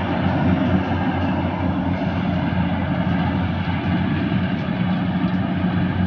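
Yanmar AW70V rice combine harvester running steadily, its diesel engine humming at a constant pitch under the noise of its machinery.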